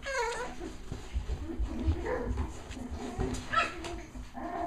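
Cavalier King Charles Spaniel puppies whining and yipping as they play. A falling whine comes right at the start and a high yip about three and a half seconds in, over low bumps and knocks.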